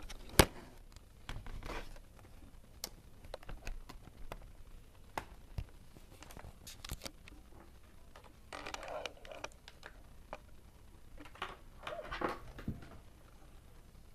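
Handling noise from a laptop being turned over and set up: scattered clicks and taps, the sharpest about half a second in, with short bouts of rustling and brushing between them.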